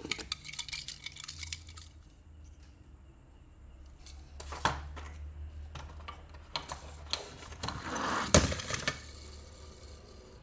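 Small die-cast metal toy cars clinking and clattering against each other as they are handled and set down. The clatter comes in a burst at the start, a few single knocks, and a denser cluster later, with the loudest knock about two seconds before the end.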